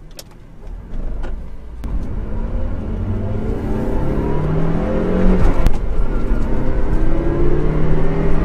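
Toyota MR2 AW11's 1.6-litre four-cylinder engine accelerating through the gears: the engine note climbs in pitch, breaks off briefly about halfway through at a gear change, then climbs again, with loudness building from about a second in.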